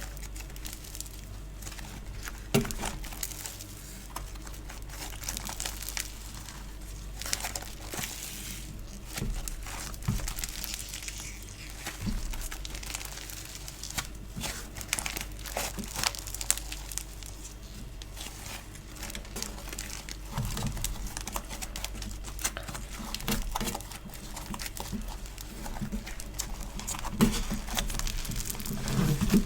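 Store-bought foam clay and slime being squished, pressed and pulled apart by hand: a continuous stream of sticky crackles, clicks and small tearing sounds, with a few louder snaps.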